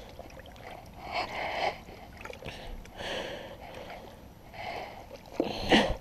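Water sloshing and splashing in a plastic bowl as a cloth is dunked and squeezed in it, in a few separate bursts, with a louder short sound near the end.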